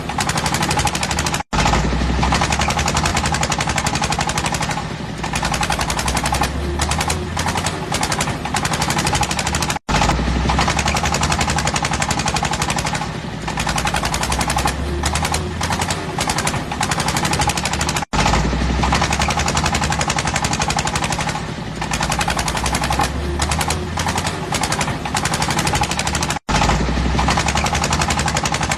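Fishing boat's diesel engine running with a rapid, loud, steady chugging, cut off for an instant about every eight seconds.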